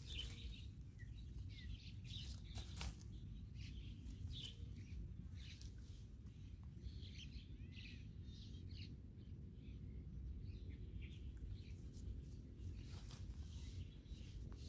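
Quiet outdoor ambience: a steady low rumble with faint, scattered bird chirps and occasional light rustling of leaves.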